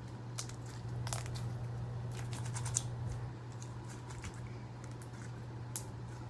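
Slime being kneaded and squeezed by hand to work coloring into it: scattered small sticky clicks and crackles, a cluster of them a little before the middle, over a steady low hum.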